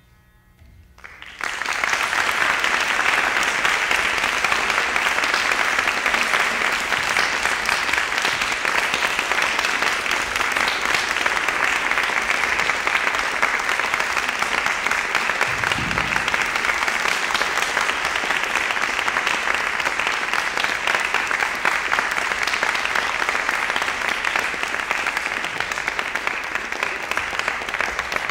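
Audience applause, starting after a brief hush about a second and a half in and continuing steadily, with a single low thump about halfway through.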